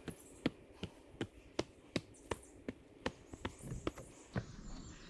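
Footsteps of a person walking at a steady pace: sharp, evenly spaced steps, about three a second, becoming less regular near the end.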